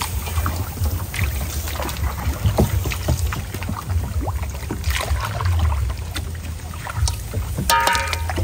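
Water splashing and sloshing with scattered light knocks, over a steady low wind rumble on the microphone. A short pitched sound with several tones comes in near the end.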